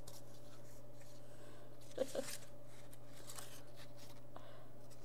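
Paint-covered index cards being handled and shifted on a tabletop, making faint paper rustles and taps over a steady low electrical hum. A brief murmur about two seconds in.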